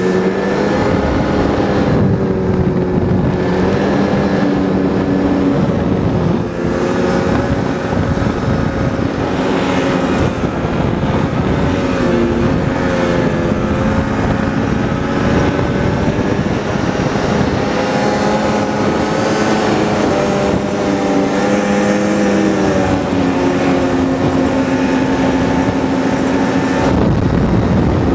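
Snowmobile engine running steadily at cruising speed, its pitch shifting up and down a little as the throttle changes.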